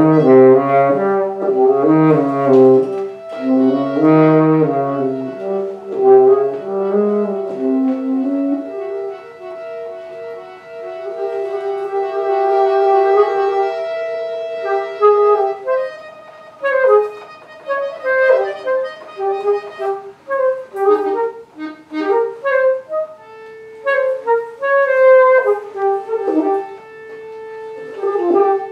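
Accordion, guitar and saxophone trio playing: pulsing low chords in the first several seconds give way to long held notes, then short, scattered notes, with one note held near the end.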